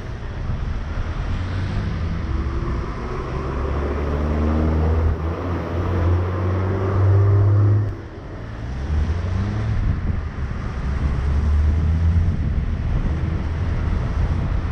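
Vehicle engine pulling away and accelerating, its pitch rising steadily, dropping suddenly about eight seconds in at a gear change, then rising again as it picks up speed. A steady hiss of tyres on the wet road runs underneath.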